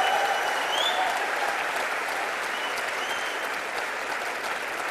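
Audience applauding steadily, a dense clapping that holds through the whole pause. Two thin high tones sound over it, one in the first second and one around three seconds in.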